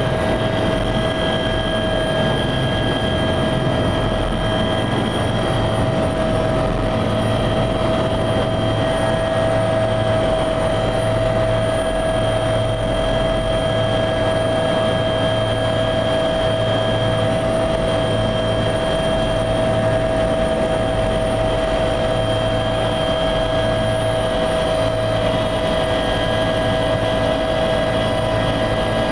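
Helicopter heard from inside its cabin: a steady high turbine whine over the low, evenly pulsing throb of the rotor.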